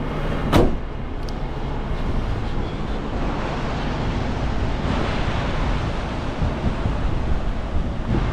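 Garbage truck's diesel engine idling under a steady rushing noise, with one sharp thud about half a second in.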